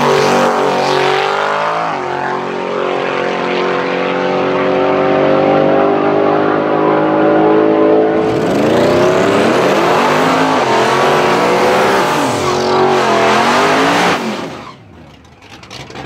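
Twin-turbo Ford Coyote 5.0 V8 Mustang engine running hard at high revs. Its pitch holds steady and climbs slowly for several seconds, then swings up and down repeatedly before the sound falls away near the end.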